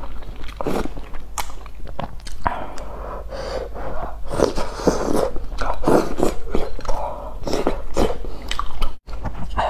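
Close-miked eating of instant noodles in broth: slurping noodles and chewing, wet mouth sounds following one another irregularly.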